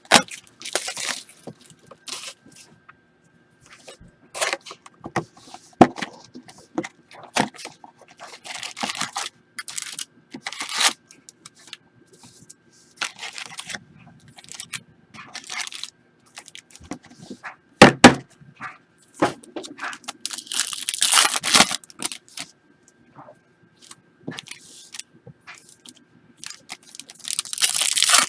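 Trading-card packaging being handled and opened: scattered clicks, scrapes and short bursts of tearing and crinkling wrapper, with a sharp click about two-thirds of the way in and longer rustling near the end.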